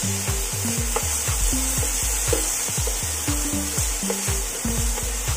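Chopped onion, grated carrot, green chillies and tomato sizzling in hot oil in a frying pan while being stirred, with a steady hiss of frying and repeated light scrapes of the spatula against the pan.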